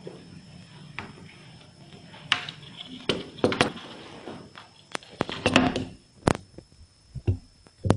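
Pliers working a thin strip of aluminium soda can: irregular sharp clicks and taps of the steel jaws and the sheet metal, with short rustling between them.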